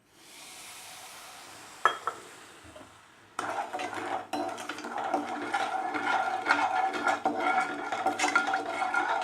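A short pour of water hissing into sugar, then a single clink of a spoon. From about three and a half seconds in, the spoon stirs the sugar and water, scraping and clinking busily against the vessel to dissolve it for syrup.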